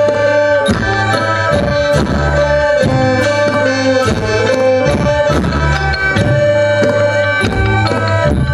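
Live Thai folk ensemble music accompanying a dance: drums beating about two strokes a second under held drone notes and a melody line.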